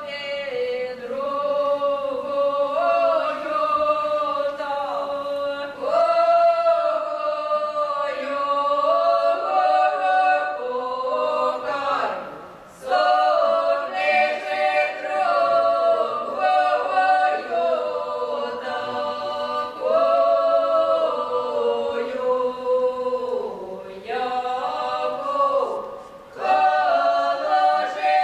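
Ukrainian traditional wedding song sung a cappella by a mixed ensemble of women's and men's voices in several parts, without instruments. The singing breaks off briefly between phrases about twelve and twenty-six seconds in.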